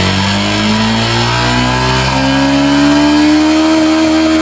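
Motorcycle engine revved up from idle: its pitch climbs over the first two seconds or so, then holds high and steady. The throttle is being held open so the stator's AC output can be measured.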